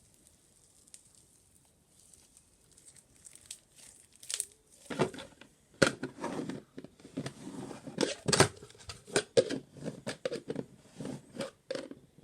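Crunchy slime full of foam beads being squeezed and worked by hand: irregular crackling and popping with wet squelches, starting after a few quiet seconds.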